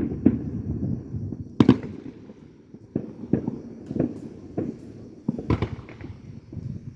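Aerial fireworks going off in a rapid, irregular string of booms and sharp cracks, each with a rumbling tail, about a dozen in all. The loudest come right at the start and a little under two seconds in.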